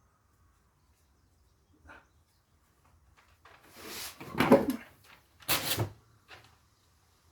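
Freshly sharpened scissors cutting paper in a test of the edge: a longer rustling cut about four seconds in, then a shorter one.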